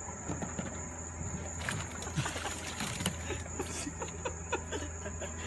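A small puppy yipping in a run of short, high barks over a steady low hum.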